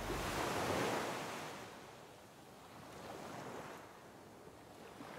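Ocean waves surging, loudest in the first second, then fading, with two softer swells after it.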